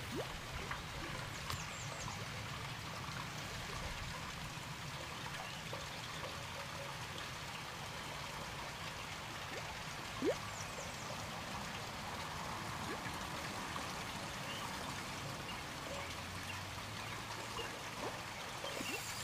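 Faint, steady outdoor background at a pond, a soft water-like hiss, with one short rising squeak about ten seconds in.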